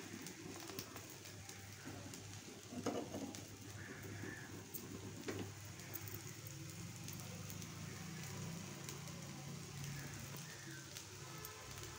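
Faint sizzling and crackling of a pesarattu (green gram dosa) cooking on a hot tawa, with scattered light clicks and a low hum coming in about halfway through.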